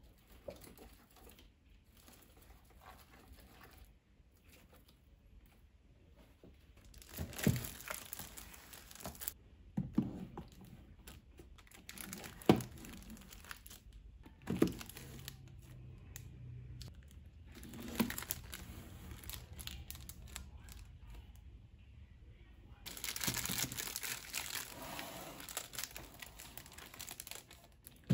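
Books being handled and set on a shelf: the plastic shrink-wrap on manga volumes and box sets crinkles, with several separate knocks as books are put down. The crinkling is loudest from about two-thirds of the way in to the end.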